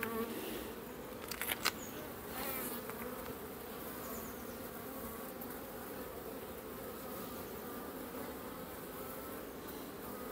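Honeybee colony buzzing steadily from an opened hive during a frame inspection, a wavering low hum. A couple of light clicks come about a second and a half in.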